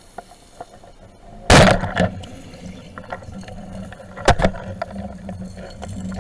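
Underwater handling noise from a camera mounted on a speargun: a loud, short rush of water and clatter about a second and a half in, then scattered knocks and a sharp click over a steady low water rumble.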